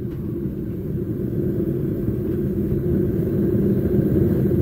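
Homemade propane venturi burner, with a MIG welder contact tip for its jet, firing into a brick gas forge: a steady low rushing noise that grows steadily louder as the gas pressure is turned up.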